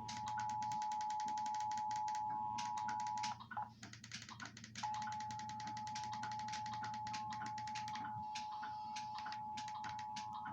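Emergency Alert System attention signal: the steady two-tone 853/960 Hz alert tone of an EAS test. It cuts out for about a second and a half a little over three seconds in, then resumes as a single steady tone.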